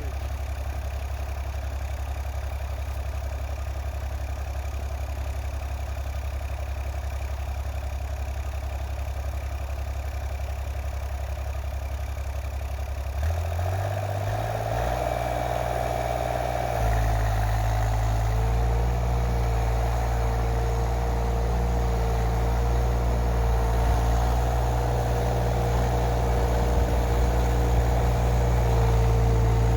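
2-ton mini excavator engine running steadily at low speed, then revved up about 13 seconds in and running louder under load as the machine climbs over a snowbank, with a steady whine joining a few seconds later.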